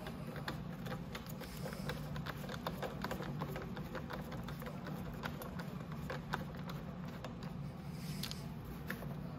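Light, scattered clicks and taps of bolts and a driver being handled during disassembly, over a steady low hum.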